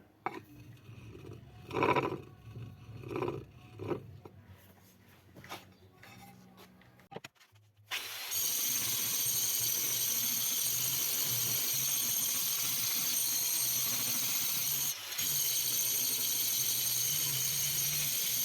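A few knocks and handling clatter, then about eight seconds in an angle grinder, plausibly fitted with a diamond cup wheel for levelling granite, starts and runs steadily with a high whine over a hiss, dipping briefly near the end.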